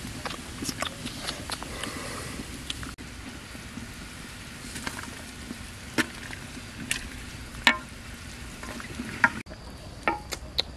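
Pig's head simmering in a clay pot over a wood fire, giving a steady hiss with small crackles. In the second half a metal ladle stirs the pot, knocking and scraping against its sides in several sharp clacks.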